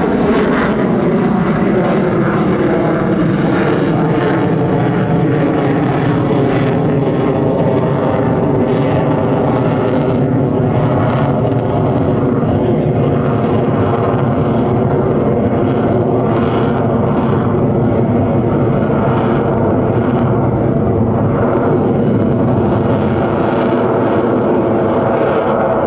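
Twin Pratt & Whitney F119 turbofans of an F-22 Raptor in flight: a loud, steady jet rumble whose tone falls in pitch over the first few seconds and then holds steady.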